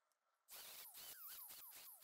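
Small rotary tool with a carbide cutting burr grinding into an aluminium moped crankcase, heard faintly in short stretches from about half a second in, its whine repeatedly dropping in pitch as the burr bites. This is the crankcase transfer ports being enlarged to match a bigger racing cylinder.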